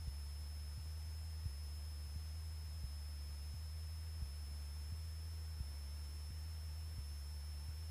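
Single-engine Cessna's piston engine droning steadily in cruise, heard as a low muffled hum through the headset intercom feed. Faint ticks come about every two-thirds of a second, over a thin, steady high whine.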